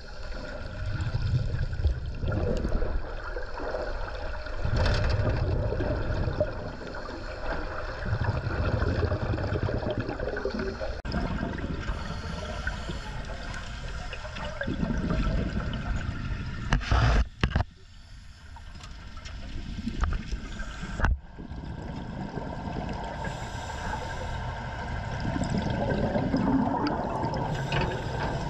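Water gurgling and sloshing close to the microphone, in deep rumbling surges every few seconds, with a few sharp knocks about two-thirds of the way through.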